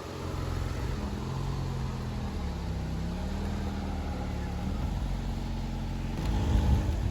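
Vehicle engine running steadily, its low hum wavering slightly in pitch, with a louder low rumble near the end.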